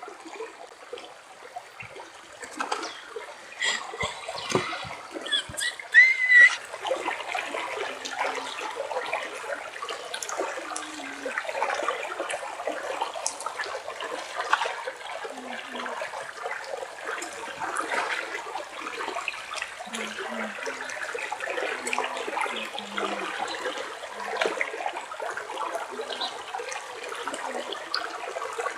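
Flowing water running steadily, with a few knocks in the first several seconds.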